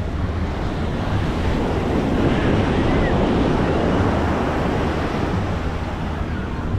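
Ocean surf washing onto a sandy beach, swelling about two seconds in and easing off again, with wind buffeting the microphone.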